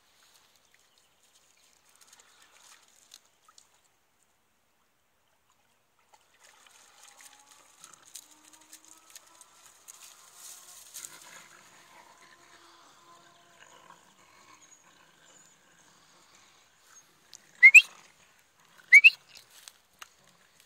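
Patterdale terrier puppies at rough play: faint scuffling and rustling in dry grass and reeds, then two short, loud, sharply rising yelps about a second apart near the end.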